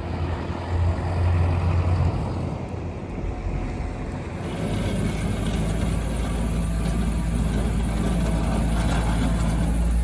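A motor vehicle's engine running steadily with a low rumble, the sound changing about halfway through.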